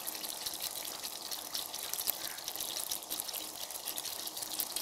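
Dum aloo gravy sizzling in a kadai on the gas: a steady crackling hiss.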